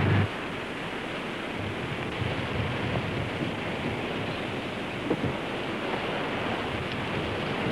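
A dune buggy's engine cuts off just after the start, leaving a steady rushing noise like wind and surf, with one short knock about five seconds in.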